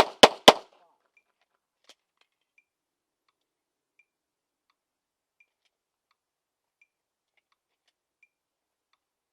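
Handgun shots, three sharp reports about a quarter second apart right at the start. A faint, steady tick then repeats about every one and a half seconds.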